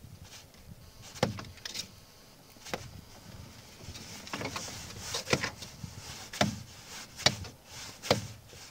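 Repeated sharp knocks as a wooden-handled tool strikes fish lying on the floor of a small boat, coming about once a second and more often in the second half.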